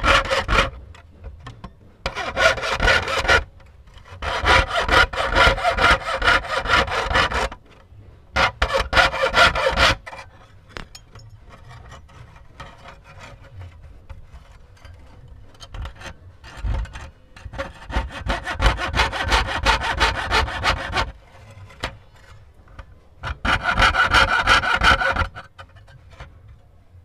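Jeweller's saw cutting thin brass sheet with rapid short strokes, in bursts of one to three seconds separated by brief pauses, with a quieter stretch of lighter sawing in the middle.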